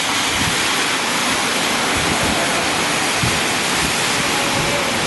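Steady hiss of tyres on a rain-soaked road and falling rain as a convoy of fire engines and ambulances drives past, with no siren.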